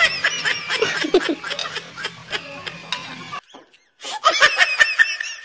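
People laughing in short bursts. The laughter cuts off about three and a half seconds in and comes back briefly near the end.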